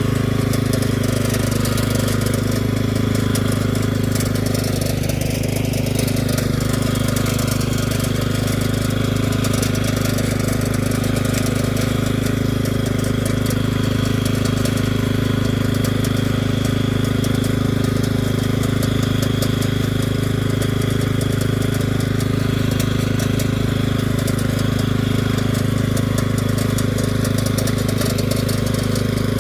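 Walk-behind cultivator's small engine running steadily at an even speed.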